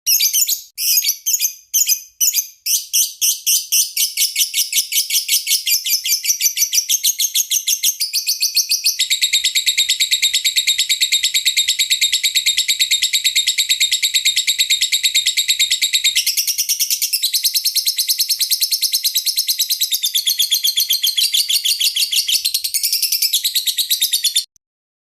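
Lovebird singing: a fast, continuous high chatter of chirps that tightens into an unbroken rapid trill about nine seconds in, then cuts off abruptly near the end.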